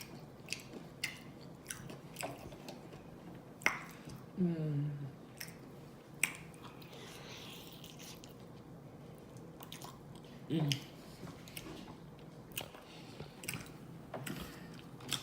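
A person biting and chewing fried chicken wings, with crunches and wet mouth clicks. Two brief throaty voice sounds, about four and a half seconds in and again near ten and a half seconds.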